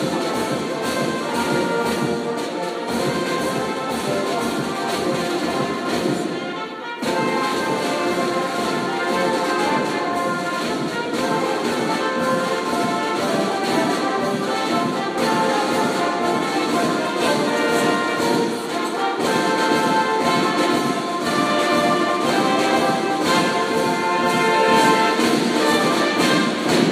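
Marching band playing: brass instruments carrying the tune over a steady beat of snare drums, bass drum and cymbals.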